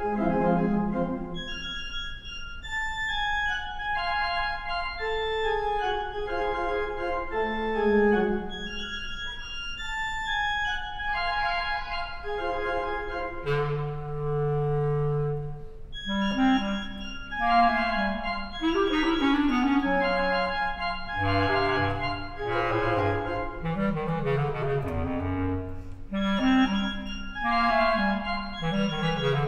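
Bass clarinet and organ playing a classical duet: held notes and flowing lines, with a long low note a little before the middle and quicker runs of notes after it.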